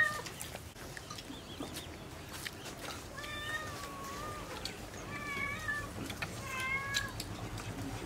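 A cat meowing three times, each meow under a second long, about three, five and six and a half seconds in, with faint clicks and taps between.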